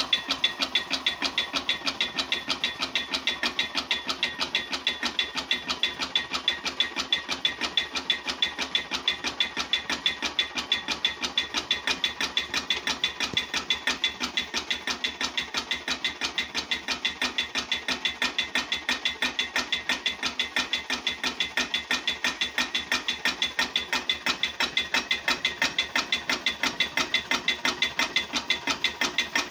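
Antique Stirling hot-air engine running steadily, heated by a small burner flame, with an even, rapid mechanical knocking of several beats a second.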